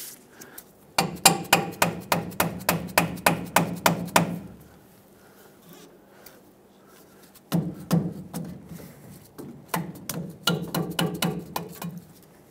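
Rubber mallet tapping a snug-fitting new steel leaf spring shackle onto the leaf spring eye bushing. There are two runs of rapid taps, about five a second, each lasting three to four seconds, with a pause of about three seconds between them.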